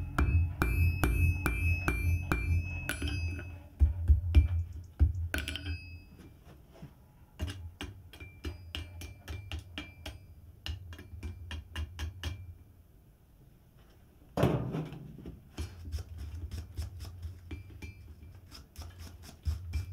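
Hand hammer striking a red-hot steel billet on an anvil, about two or three blows a second, with the anvil ringing after each blow. After a few seconds the blows stop and quicker, lighter scraping strokes follow, a wire brush scrubbing scale off the hot billet, with one louder clatter about midway.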